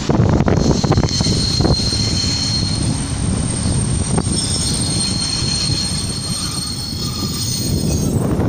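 Riga-built 412-series electric multiple unit rolling slowly in on arrival, its wheels and brakes giving a steady high-pitched squeal from about a second in until near the end. Under it runs the low rumble of the wheels on the rails, with a few knocks.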